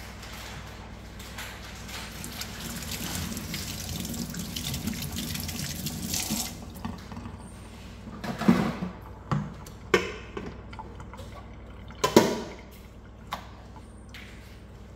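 Water sloshing as pieces of meat are rubbed and rinsed by hand in a stainless steel bowl, building and then dying away about halfway through. A few sharp knocks follow as the bowl is lifted away.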